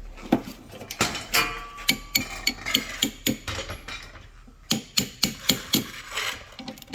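Metal hand tools and sockets clinking and knocking together, a run of irregular sharp clicks with a quicker cluster about two-thirds of the way in.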